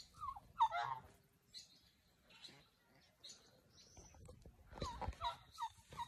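Domestic fowl calling: a quick run of short notes about half a second in, then a longer run of short calls about five seconds in.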